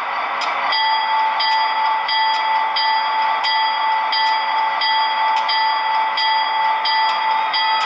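Diesel locomotive bell sound effect from an O scale model's MTH Proto-Sound 3.0 sound system, ringing steadily at about two strokes a second over a steady background hum.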